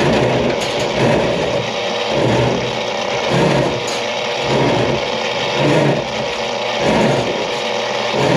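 Drain-cleaning machine running in a grease-clogged kitchen drain stack, a steady mechanical noise that swells and fades about every second and a bit.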